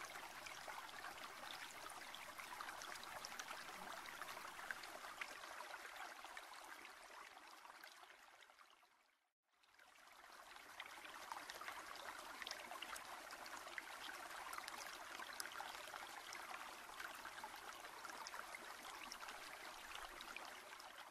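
Faint, steady sound of running water, fading out about nine seconds in and fading back in a second later.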